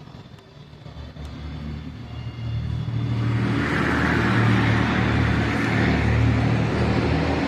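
Epson L3250 inkjet printer's mechanism running with a steady mechanical racket that builds up over the first three seconds and then holds. It is the abnormal noise of a faulty printer that will not print.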